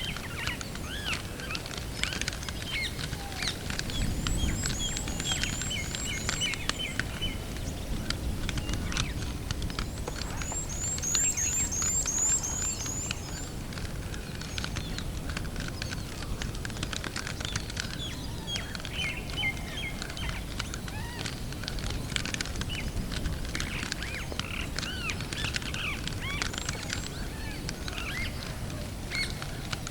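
Many birds chirping and calling together, with two runs of rapid, high trilled notes, over a steady low outdoor rumble.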